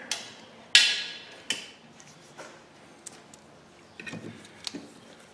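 Metal tools and small screws being handled: a sharp metallic clank with a short ring about a second in, then scattered light clicks and ticks, with a cluster of clicks near the end as a hand impact driver bit is set into a brake rotor retaining screw.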